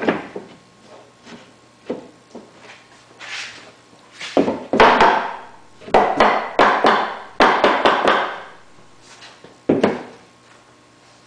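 A soft-faced mallet knocking a wooden breadboard end onto dry-fit Domino tenons, a string of knocks with quick runs of blows in the middle and one last blow near the end.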